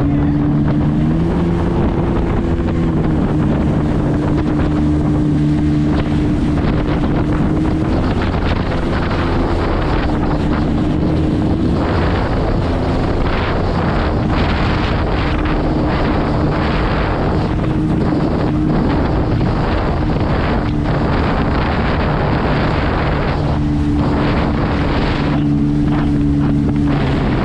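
Jet ski engine running at speed, its note rising and falling a little with the throttle, under heavy wind noise on the microphone.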